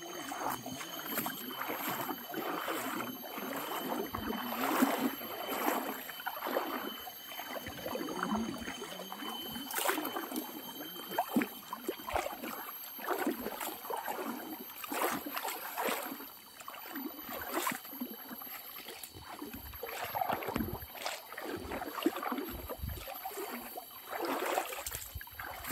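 Feet wading and splashing through a shallow jungle river, a splash every second or so, over a steady high whine.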